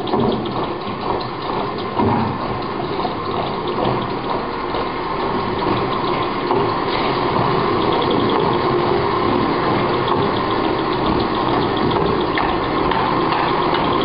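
Many electric sewing machines running together, a dense chatter of motors and needles. It grows steadier and slightly louder from about five seconds in, with a fast ticking of needles running through it.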